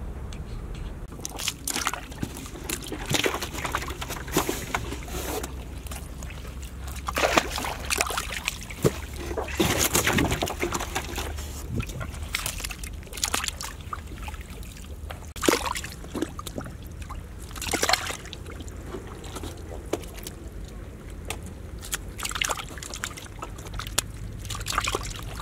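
Snakehead fish thrashing in shallow muddy water inside a clay hole trap, making irregular splashes and sloshes.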